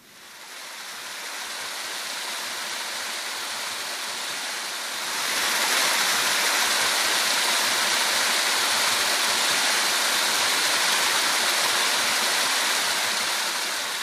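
Water cascading down a low stepped stone weir: a steady rushing splash that comes in over the first second and grows louder about five seconds in.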